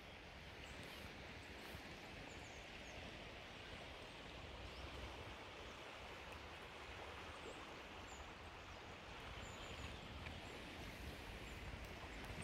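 Faint, steady rushing of a swollen, fast-flowing river in spate.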